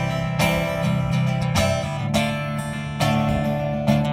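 Acoustic guitar playing the opening of a song: slow strummed chords, a new strum about every second, each left to ring.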